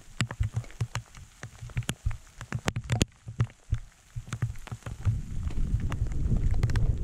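Footsteps crunching and clicking over loose stones and gravel on a mountain track, irregular and close to the microphone. About five seconds in, wind rumble on the microphone rises.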